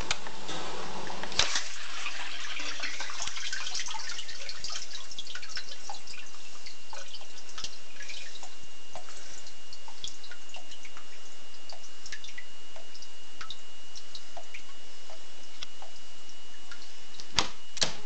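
Electra dishwasher's door unlatched with a sharp click about a second and a half in, then water dripping and trickling inside the wet tub, the drips thinning out over time, with a faint steady high tone behind. Two sharp clicks near the end as the door is shut.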